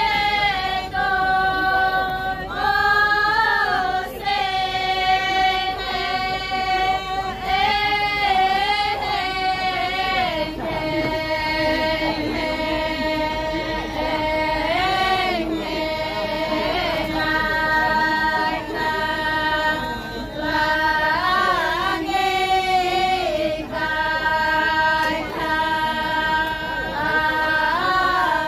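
A group of pa'katia dancers singing their chant unaccompanied in unison, women's voices holding long, level notes and turning in wavering melismas between them.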